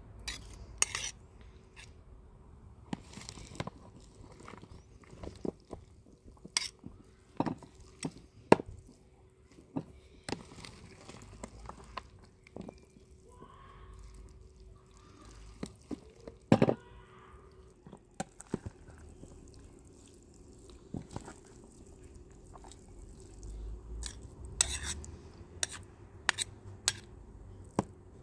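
Kitchen utensils knocking and clinking against dishes in scattered single clicks, with a quicker run of them near the end.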